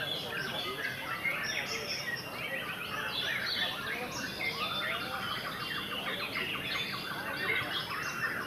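Several caged white-rumped shamas (murai batu) singing at once, a dense tangle of overlapping whistles and rapid trills.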